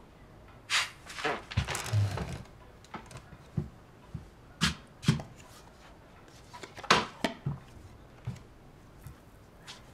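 Footsteps and handling noises of a person moving about a small room: a scatter of separate sudden knocks and scuffs at irregular intervals, busiest about one to two seconds in.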